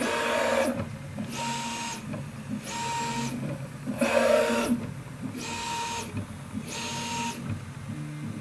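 Prusa i3 MK3S+ 3D printer's stepper motors whining through a series of short print-head moves, about one a second with brief pauses between them. This is the printer's routine of probing across the bed before it starts printing.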